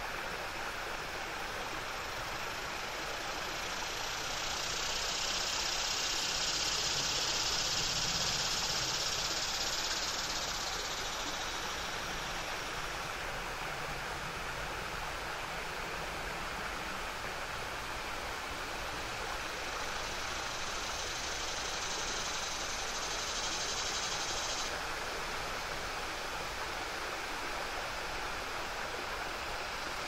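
Small waterfall rushing steadily over a low rock ledge into a river. Cicadas sing in the background, swelling in about four seconds in and fading by twelve, then again from about twenty seconds until they stop abruptly near twenty-five.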